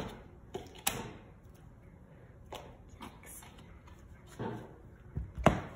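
Sharp clicks and taps from hands working slime and its containers, a handful spaced irregularly a second or so apart, the loudest near the end.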